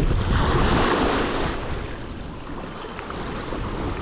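Wind buffeting the microphone over river water lapping and splashing against a rocky shore, louder in the first second or so and easing after about two seconds.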